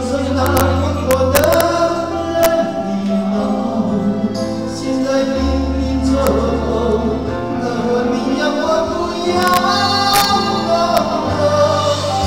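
Gospel song performed with singing over band accompaniment: sustained sung lines over a steady bass, with drum and cymbal hits.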